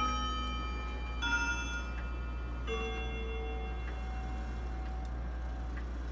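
Emperor grandfather clock's chime rods struck by their hammers: three ringing notes, one at the start, one just over a second later and one about a second and a half after that. Each note rings on and slowly fades.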